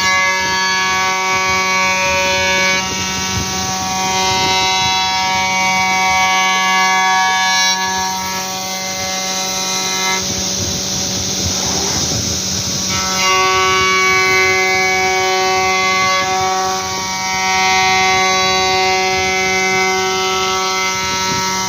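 CNC router running: a steady hum with layered whining tones that hold, drop out for a few seconds midway while a rougher rushing noise takes over, then come back.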